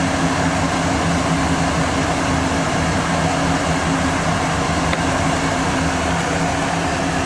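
Steady whirring hum of a fan motor running, with a constant low drone and an even rush of air noise.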